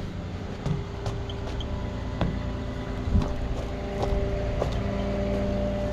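Rollback tow truck's engine running at a steady idle, with a few scattered knocks and footsteps alongside it, the loudest a low thump about three seconds in.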